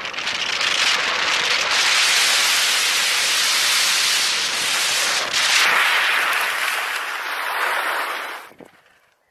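Loud rushing wind on the camera microphone at downhill longboard speed, mixed with the roll of 75a urethane wheels on asphalt. It fades and then drops away sharply about eight and a half seconds in, as the rider goes down and slides to a stop in a crash.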